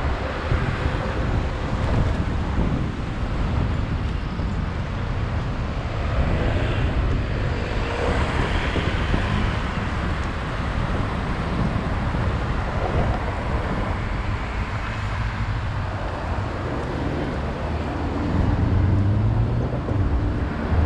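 Wind rushing over the microphone of a moving bicycle, with road traffic going by; a steady, rumbling noise that swells at times.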